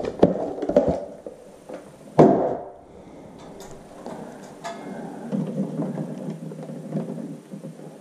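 Handling noise from a smoke detector's wiring connector and its cardboard box: light clicks and rustles in the first second, one louder thump about two seconds in, then faint rustling with small ticks.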